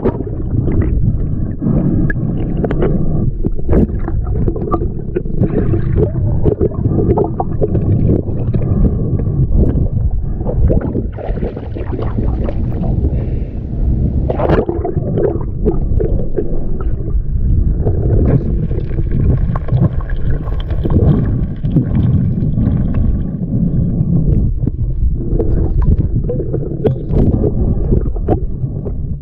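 Muffled underwater sound of a shallow river around a submerged camera: a continuous low churning and gurgling of moving water, with scattered knocks and taps as the snorkeler disturbs the gravel bed.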